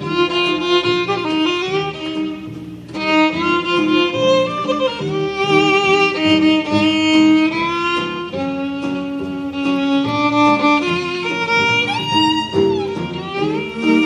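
Live music with a violin-like bowed melody line over accompaniment, the notes sliding and wavering in places.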